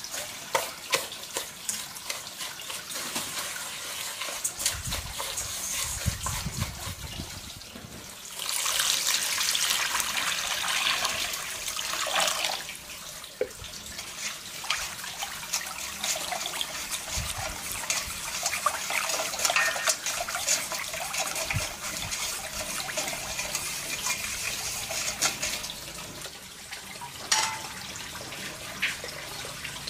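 Water running and splashing, with small clicks and knocks throughout. The flow is loudest for about four seconds starting some eight seconds in, and there is a sharper knock near the end.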